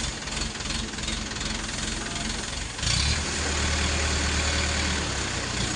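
Mobile crane's engine running steadily, then picking up about three seconds in to a louder, deeper drone, as when the engine is revved to work the lift.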